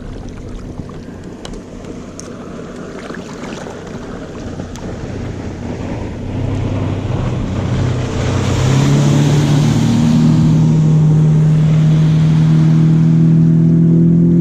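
Motorboat coming up fast: water rush and engine noise build over the first half. From about ten seconds in, the engine runs loud and steady.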